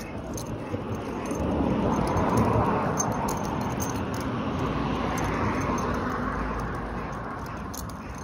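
A vehicle passing by: a rushing noise that swells over a couple of seconds, then slowly fades away.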